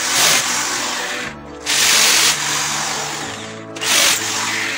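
Corded electric drill with a 3/8-inch concrete bit boring into a masonry wall in three short bursts, with background music underneath.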